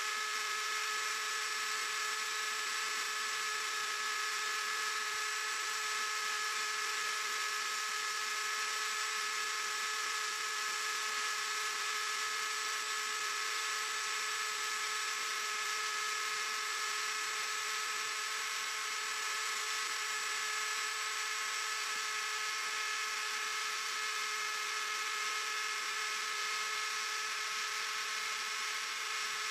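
Small CNC machine running with a steady electric whine of several fixed tones over a hiss.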